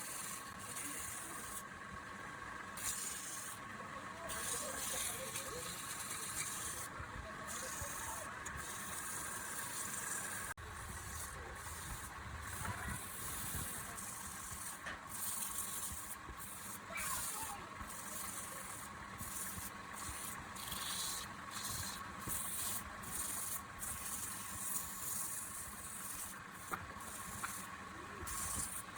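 Wood lathe running with a steady whine, while something is rubbed and scraped against the spinning wood in short, repeated hissing strokes.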